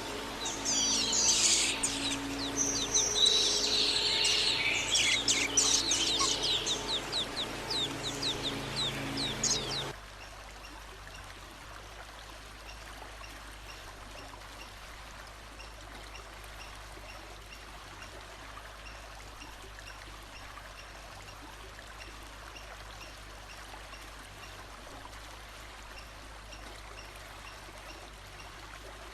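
A songbird singing loud, fast phrases of quick sweeping whistles over the steady rush of flowing water. The song cuts off abruptly about ten seconds in, leaving only the running water.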